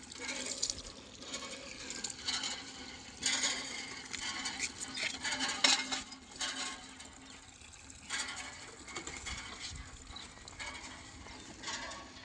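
Water splashing and pattering on a motorcycle as it is washed, uneven, with a few sharper clatters, the loudest a little before the middle.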